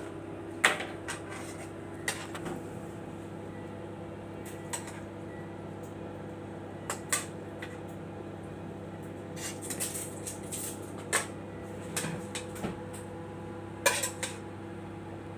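Metal tongs clinking and scraping against a nonstick frying pan and trays as cooked chicken strips are lifted out, with irregular sharp clicks, the loudest just after the start and near the end. A steady hum runs underneath.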